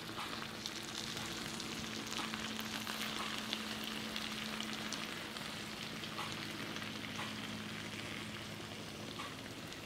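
Cool sugar syrup poured over a tray of hot, freshly baked baklava, sizzling steadily with a fine crackle as it runs into the cuts between the fillo layers. A faint steady hum sits underneath.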